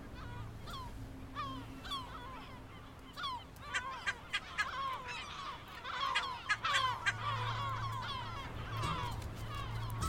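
Breeding colony of yellow-legged gulls calling: short, sharp calls, only a few at a time at first, then many overlapping from about four seconds in.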